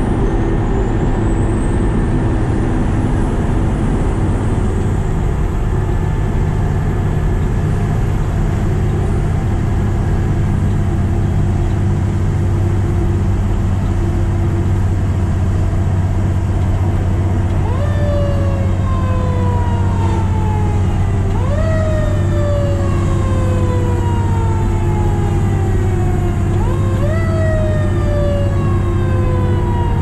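A fire truck's diesel engine and road noise run steadily as it drives. A bit past halfway, its siren comes in, three times rising quickly and then falling slowly.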